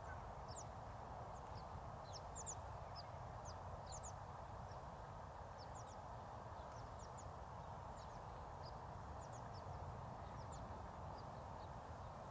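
Faint open-air ambience: a steady low hiss and rumble, with many short, high chirps from small birds scattered throughout, growing sparse near the end.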